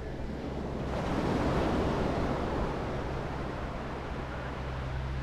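Surf washing onto a sandy beach: a wave's rush swells about a second in and slowly fades. A steady low rumble of wind on the microphone runs beneath it.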